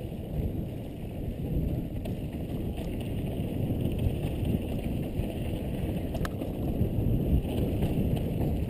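Wind rushing over a helmet-mounted camera's microphone, with the low rumble of mountain-bike tyres rolling fast over a dry dirt trail; one sharp click a little after six seconds in.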